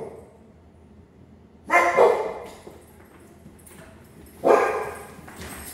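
A dog barking: two barks in quick succession a little under two seconds in, then one more about four and a half seconds in.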